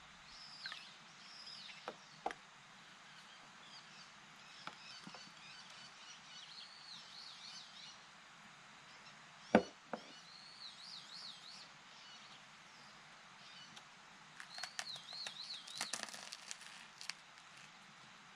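Faint outdoor birdsong: repeated wavering whistled phrases. A single sharp knock about halfway through is the loudest sound, and a scatter of light crackling clicks comes near the end.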